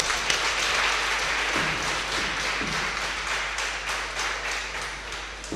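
Audience applause, many hands clapping at once, swelling at the start and fading gradually over about five seconds.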